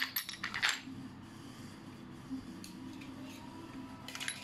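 Chrome steel sockets and tool pieces clinking against each other and the plastic holder rail as they are handled, with a quick run of sharp clicks in the first second and a few more near the end.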